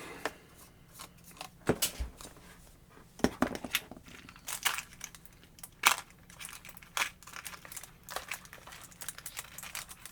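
Rotary tool parts and attachments being handled: irregular clicks, taps and short crinkling rustles of plastic.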